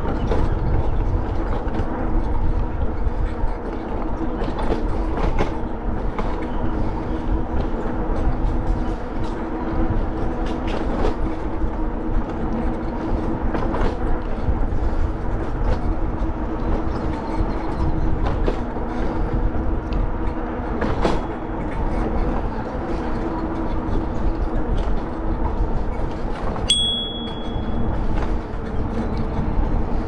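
Bicycle riding noise: a steady rumble of tyres and wind with frequent small rattling clicks and a few steady low hums. Near the end comes a short high beep.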